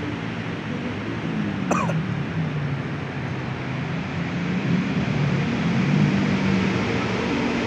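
Steady outdoor background noise with low wavering tones, and a short, sharply falling squeak about two seconds in.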